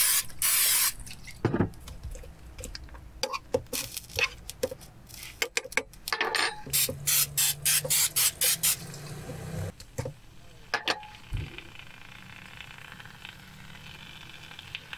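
Aerosol cooking spray hissing in bursts over shrimp in a frying pan: one long spray at the start, then a run of short spurts, with clicks and knocks of handling. Later a faint steady sizzle from the pan.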